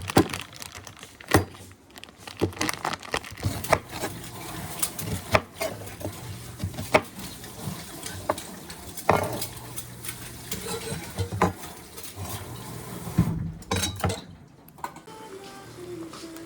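Dishes and cutlery clattering: irregular clinks and knocks, a few a second, over a low steady hum. The clatter stops near the end.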